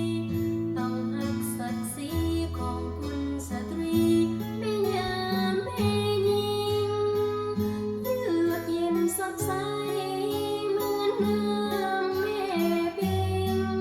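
Background song: acoustic guitar and bass chords under a female voice singing, which comes in about four seconds in.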